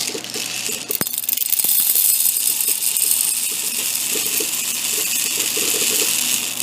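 Popcorn kernels poured steadily into a measuring cup, a dense rattle lasting about five seconds that begins with a click about a second in.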